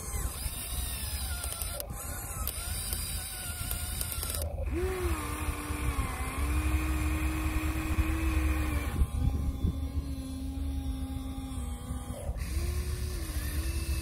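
Small electric motors of a Huina 1:14-scale RC excavator whining as it digs, lifts and swings its boom. The whine holds steady for a few seconds at a time and shifts pitch as each movement changes, over a low steady rumble.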